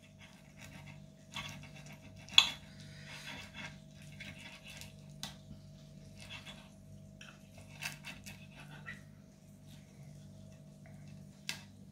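Knife and fork cutting a grilled salmon fillet on a ceramic plate: faint scrapes and scattered clicks of the cutlery against the plate, the sharpest about two seconds in and another near the end, over a faint steady hum.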